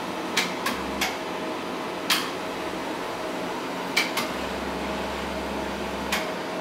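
Motorised adjustable keyboard-stand legs being driven one at a time by their switches: sharp switch clicks, and a low motor hum that runs briefly about a second in and again for about two seconds near the end.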